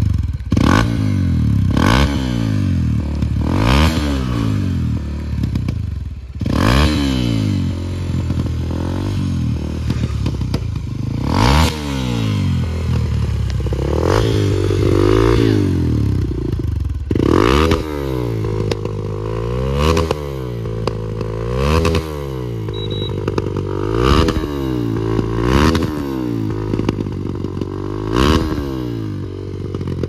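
Hero Xpulse 200's single-cylinder engine, fitted with a Norifumi Noctus T5 aftermarket exhaust, revved in repeated throttle blips, each rising and falling in pitch. Sharp pops and bangs from backfiring in the exhaust come with many of the blips, and one rev near the middle is held higher for a couple of seconds.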